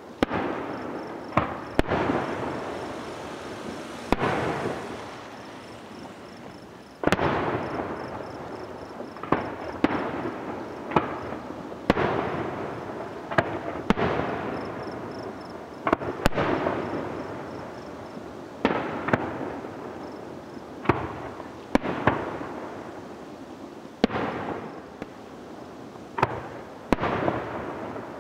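Aerial fireworks shells bursting in quick succession, sharp bangs a second or two apart, each trailing off in a long echoing rumble.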